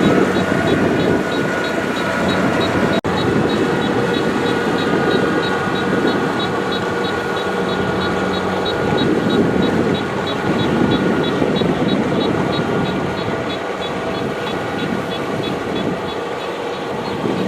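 Kubota DC-70 Plus combine harvester's diesel engine and threshing machinery running steadily under load while harvesting rice, with a fast, regular high ticking over the drone. The sound cuts out for an instant about three seconds in.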